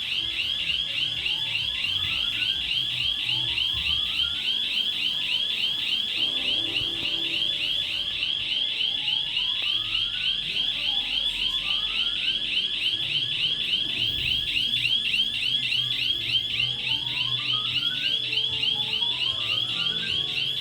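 Shop panic alarm sounding continuously: a loud, high electronic tone warbling rapidly several times a second.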